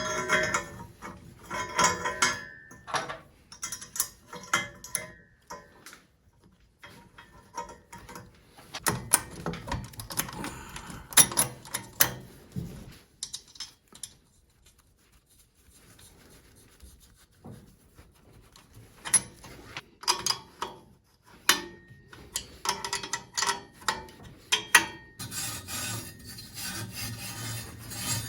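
Stainless steel exhaust parts being fitted together by hand: irregular metal clinks and knocks with scraping as the pieces slide and rub against each other. A brief ring sounds a little past 21 s, and a steadier rasping scrape fills the last few seconds.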